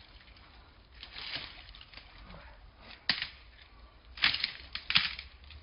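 Scuffling and crunching in dry leaves and loose soil as a mouflon with its horns caught in a tree struggles and paws the ground. Short bursts, a sharp one about three seconds in and the loudest cluster near the end.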